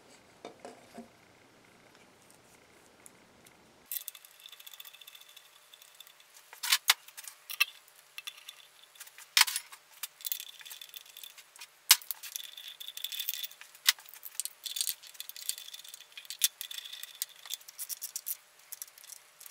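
Near silence for about four seconds, then light metallic clinks and rattles with short runs of fine clicking from a small ratchet and socket, as thermostat housing bolts are done up by hand.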